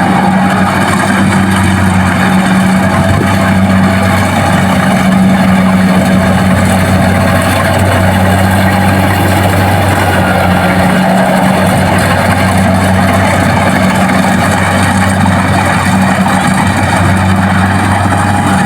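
Kubota DC-70 Plus combine harvester's diesel engine running steadily at working speed with its harvesting machinery, a loud, even drone.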